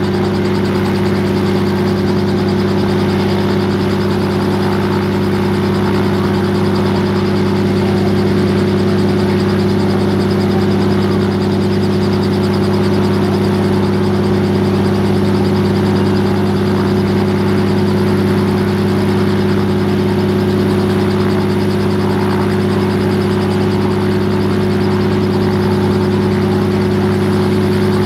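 Robinson R44 Raven II helicopter running steadily on the ground, its Lycoming IO-540 six-cylinder engine idling with the main rotor turning slowly before take-off. It is an even drone with several low steady tones, unchanging in pitch and level.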